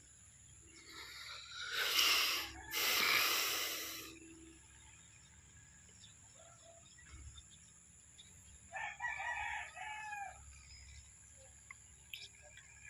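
Rooster crowing loudly, a long two-part crow about two seconds in, then a fainter crow about nine seconds in.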